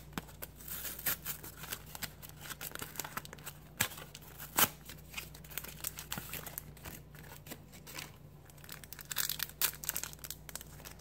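A Pokémon trading card blister pack being opened by hand: the packaging crinkles and tears in a dense run of irregular crackles, with a sharp snap right at the start and another about four and a half seconds in.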